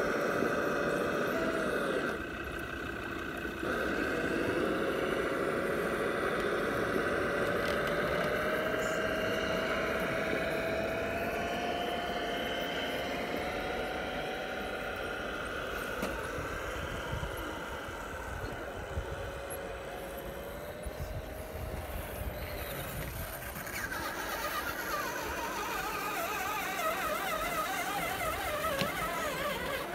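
Electric motor and gear whine of radio-controlled scale crawler trucks climbing a grassy slope: a thin steady whine that slowly rises in pitch, breaks off briefly about two seconds in, and near the end gives way to a wavering, warbling whine as another truck climbs.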